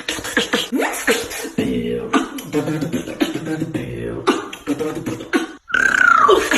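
Human beatboxing: a fast run of mouth-made percussive hits and clicks mixed with hummed, pitched vocal tones. A little over five seconds in it breaks off briefly, then returns with a high vocal sweep that falls in pitch.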